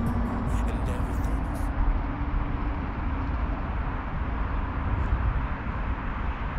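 Steady, even rumble of distant road traffic carrying across open ground, with no distinct single vehicle standing out.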